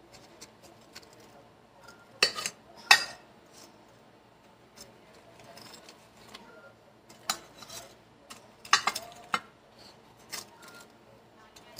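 Stainless steel kitchen tongs clinking against a glass baking dish as fried breaded chicken cutlets are laid in: scattered sharp clinks, the loudest two about two and three seconds in, and a few more near the end.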